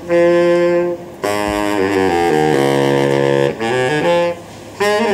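Baritone saxophone playing a slow line of held notes, each about a second long, with a short break about a second in and another near the end.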